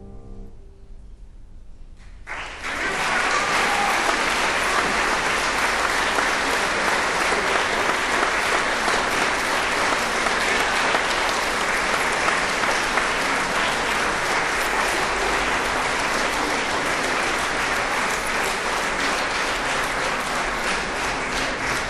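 The final piano chord fades away, and after about two seconds of quiet an audience breaks into applause that keeps going at an even level.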